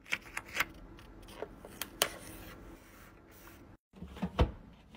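Scattered light clicks and taps of long fingernails and hands handling a clear acrylic storage bin and a stick-on label, with a low thump near the end.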